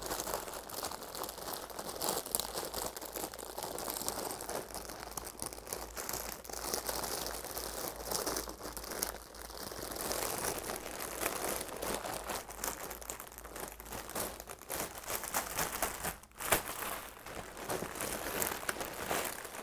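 Clear plastic packaging bag crinkling continuously as it is handled and a terry-cloth baby bathrobe is pulled out of it, with one brief pause late on.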